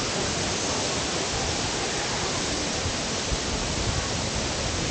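Waterfall pouring, heard as a steady, even rush of water noise.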